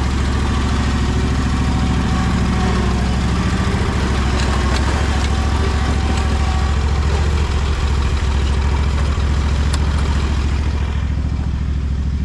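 Hustler Trimstar commercial mower's engine running steadily at an even speed, with a few light clicks and clatters on top.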